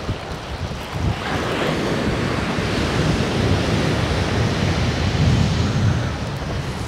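Rough sea surf breaking and washing on a shingle beach, with wind buffeting the microphone.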